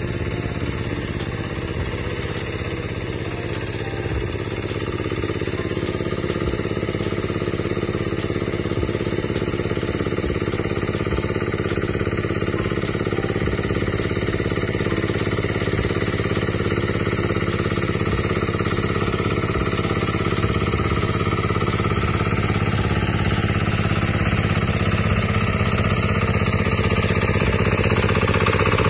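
A small engine running steadily at an even speed, a continuous drone.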